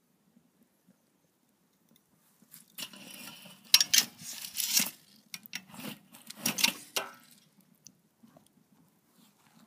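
Hot coals crunching and crackling as an axe head is worked into the embers of a wood fire. The scrapes and crackles come in a cluster of a few seconds, starting a couple of seconds in and dying away to faint ticks near the end.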